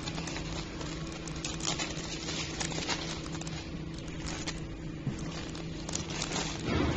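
Clear plastic wrapping film crinkling and crackling in short bursts as film-wrapped tissue packs are squeezed and handled, over the steady hum of a running packaging machine.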